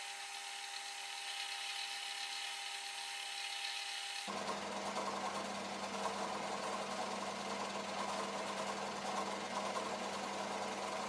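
Bench drill press running as it drills a 5 mm deep hole: a steady machine noise. About four seconds in it changes abruptly to a lower, fuller running sound with a steady hum.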